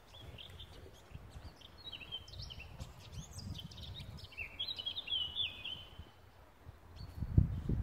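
A songbird singing a few quick, chirping phrases in the middle, over a low rumbling background, with a couple of dull thuds near the end.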